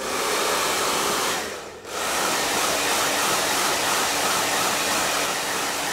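Handheld hair dryer blowing a steady rush of air, drying hair-system glue on a scalp. The sound drops away briefly about one and a half seconds in, then comes back at full strength.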